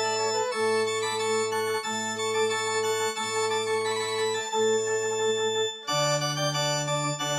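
Organ playing a slow processional for an academic procession. Sustained chords ride over a bass line that re-sounds about every second and a half, and the chord changes near the end.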